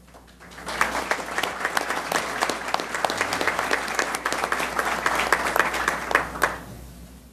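Audience applauding, many hands clapping. It builds up within the first second, holds steady, and dies away near the end.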